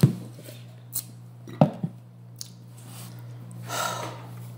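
A cup knocking and clunking as it is handled and set down on a hard table: a sharp knock at the start, a small click, then two solid knocks a little later. Near the end comes a short breathy exhale after drinking. A steady low hum runs underneath.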